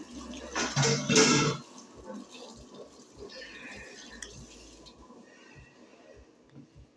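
A man chewing a mouthful of toasted sticky-rice patty with his mouth closed: soft, wet chewing clicks about two a second, growing fainter. A brief louder voiced sound comes about a second in.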